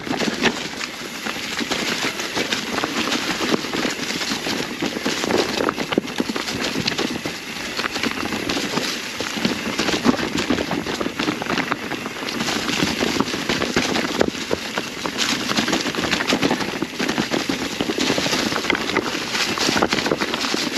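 Mountain bike tyres rolling fast over a trail covered in dry fall leaves and rocks, giving a continuous dense crackle and rattle of leaves crunching and small knocks.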